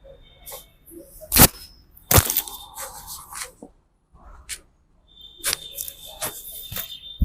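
Sharp cracks and slaps from a barber's head and neck massage. Two loud ones come about a second and a half and two seconds in, then several lighter ones in the last two seconds.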